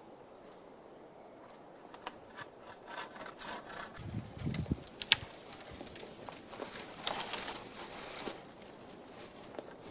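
A pigeon or dove cooing briefly about four seconds in, among scattered crackling and rustling like storm debris being handled.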